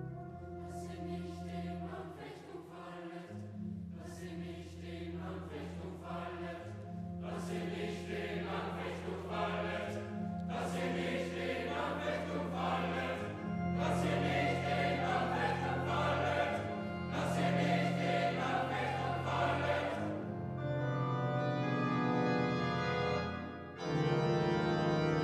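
Boys' choir singing a sacred choral piece in separate phrases over sustained chords from a two-manual electronic organ. About twenty seconds in the voices stop and the organ plays on alone, with a short break near the end.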